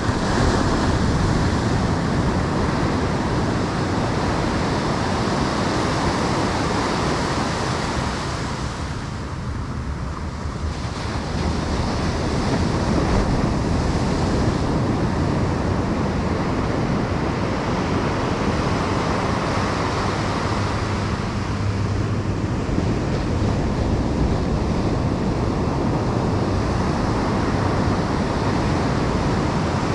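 Ocean surf breaking and washing up a sandy beach, a continuous rush with a brief lull about a third of the way in, with wind buffeting the microphone.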